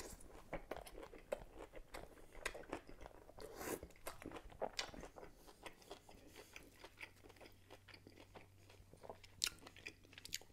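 Close-miked eating sounds: a bite into a pickled pepperoncini, then wet chewing with many irregular, faint crunches and mouth clicks.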